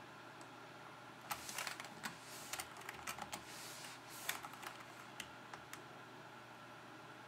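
Computer keyboard keys pressed in a quick, uneven run of clicks, starting about a second in and thinning out after about four seconds: the arrow and Enter keys stepping through a BIOS setup menu.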